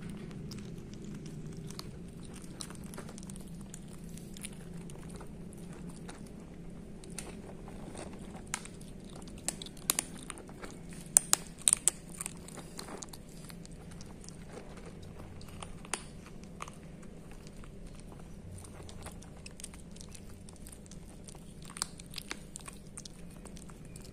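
Kittens crunching dry kibble from a plastic bowl: irregular crunches and clicks, with a burst of louder ones about halfway through.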